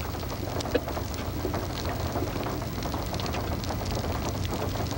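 Storm noise of wind and rain: a steady rush full of small crackling ticks, over a low steady hum.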